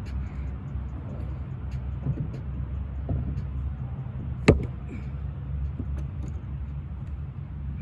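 One sharp knock of an axe striking wood, about halfway through, over a steady low rumble, with a few fainter knocks around it.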